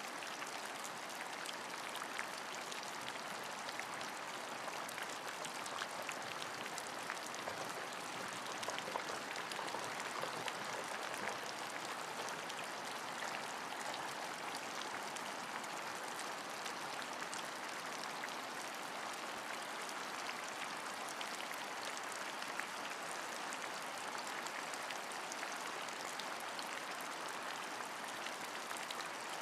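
Steady rainfall, an even hiss of rain with many small drops pattering throughout.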